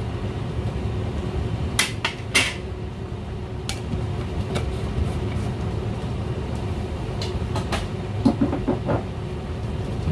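Kitchen handling sounds: a metal spoon and a glass sugar jar knocking and clinking against a stainless steel pot and the counter, a few separate sharp knocks and a quick run of ringing clinks near the end. A steady low hum runs underneath.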